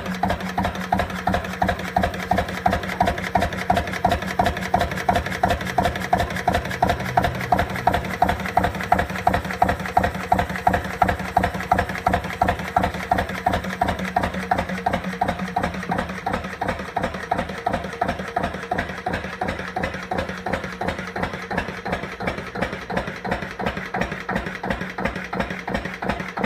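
Lister CS 6/1 water-cooled single-cylinder diesel stationary engine running steadily at about 650 rpm, with an even, rapid beat of firing strokes.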